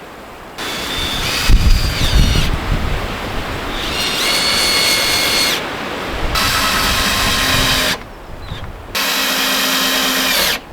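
Power drill running in four bursts of one to two seconds each, its whine gliding up as it spins up and down as it stops.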